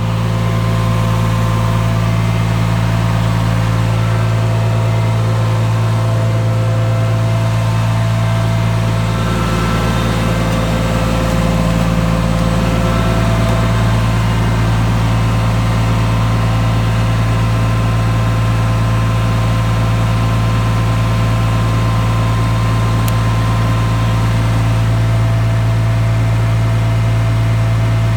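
Ford 1720 tractor's turbocharged diesel engine running steadily at PTO speed, turning a Generac 25 kW PTO generator under load, with a steady hum. The generator is holding its load with power to spare.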